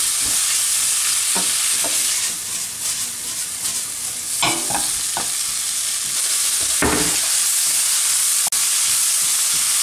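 Prawns, onion, garlic and ginger sizzling in oil in a hot non-stick frying pan while being stir-fried with a spatula. The sizzle is steady, with a few scrapes and knocks of the spatula against the pan as the food is turned.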